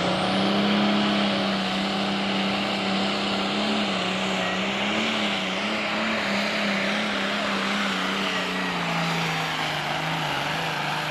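Turbocharged diesel engine of a green John Deere super stock pulling tractor running flat out under load as it drags the sled. Its engine note holds steady with slight wavers, then sags lower about eight or nine seconds in as the sled bears down near the end of the pull.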